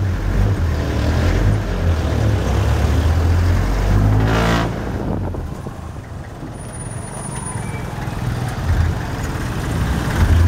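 A vehicle engine rumbling low and road noise, heard from inside a vehicle driving slowly in traffic. About four seconds in there is a short loud hiss or whoosh, and the sound eases off for a couple of seconds after it.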